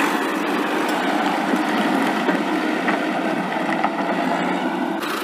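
Steady running noise of a miniature toy tractor's drive as it moves along, with a few faint clicks in the middle.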